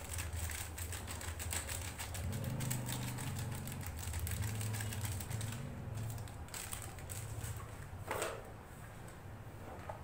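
Metal spoon clicking and scraping against a steel bowl as spices are stirred into a dry pakora mix: rapid light clicks for about five seconds, then sparser, with one sharper clink a little after eight seconds.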